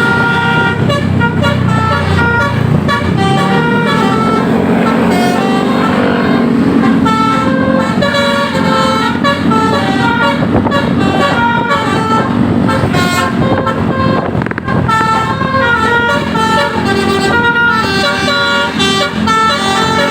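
Bus telolet horns (Basuri multi-tone air horns) playing a quick melody of short stepped notes, over and over, above the low rumble of the bus's running engine.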